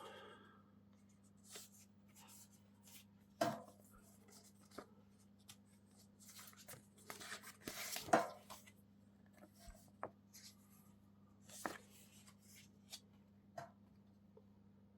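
Hands handling small items from the tin: scattered light taps and short rustles, the loudest about three and a half seconds in and around eight seconds in. A faint steady electrical hum runs underneath.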